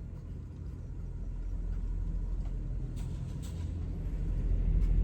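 Steady low rumble like a moving car's engine and road noise, growing louder, with a few faint clicks about three seconds in and near the end.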